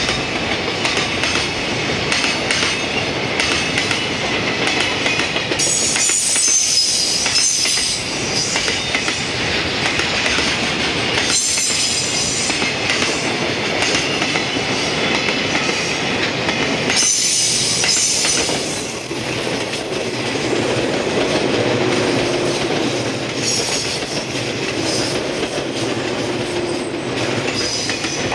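Container freight train of Koki 104 and Koki 107 flat wagons running past at speed: a steady rumble of wheels on rail with clicks over the joints, and several stretches of high wheel squeal a few seconds long. Near the end a 115-series electric train also passes on the nearer track.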